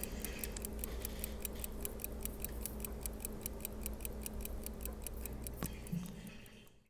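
1920s New York Standard Watch Co. 15-jewel pocket watch ticking fast and evenly: the revived movement running. The ticking fades out near the end.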